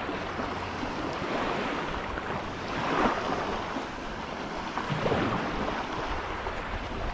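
Small lake waves washing up on the shore, swelling a little louder about three seconds and again about five seconds in.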